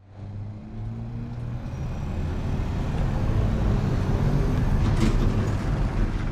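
Street traffic: a motor vehicle's engine running, a low hum that grows steadily louder through the first four or five seconds.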